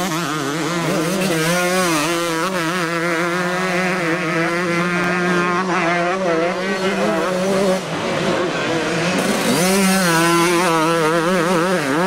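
125cc two-stroke motocross bike engine revving hard, its pitch rising and falling over and over under throttle and gear changes. It drops briefly about eight seconds in, then climbs again.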